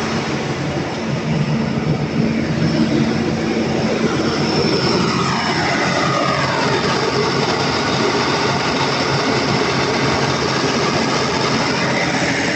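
Volvo Penta TAD1341GE six-cylinder turbo-diesel genset engine running loud and steady after a top overhaul. A steady hum drops out about a third of the way in, and a falling whine follows about halfway through.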